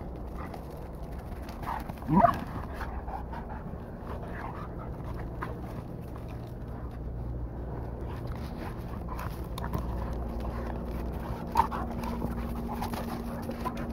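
Dogs play-wrestling, with a dog's rising whine about two seconds in that is the loudest sound, and a shorter cry near the end, over scattered scuffling.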